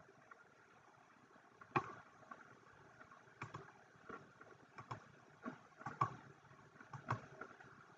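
Faint, irregular computer mouse clicks, about seven of them, the sharpest about two seconds in, over a low steady background hiss.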